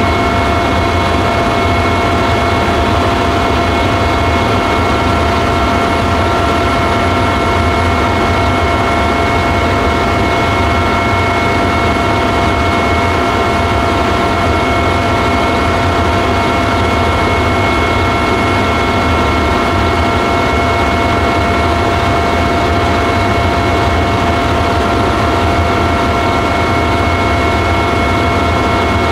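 Helicopter heard from inside the cabin in steady flight: an unchanging loud drone of engine and rotor with several steady high whining tones over it.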